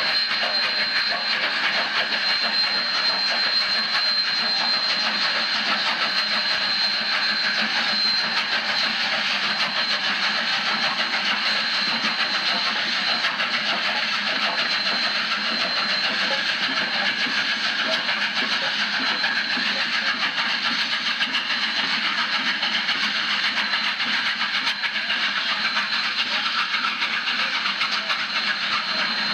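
Union Pacific 3985, a 4-6-6-4 Challenger steam locomotive, heard at close range: a loud, steady hiss of steam and running noise without distinct exhaust beats.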